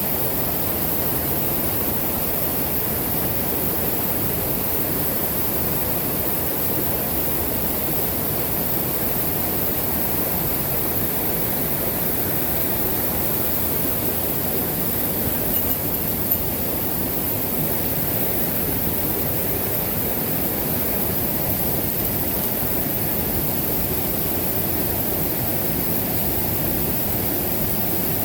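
Mountain stream water rushing over rocks as a steady, even noise, with a couple of faint ticks about halfway through.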